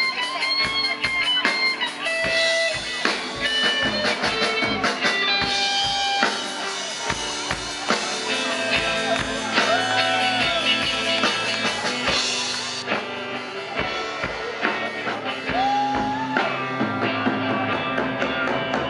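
A live rock band playing, with electric guitar and drum kit.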